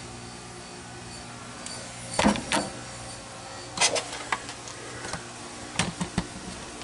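A few short, irregular clicks and knocks over a steady low hum, typical of a handheld camera being moved about.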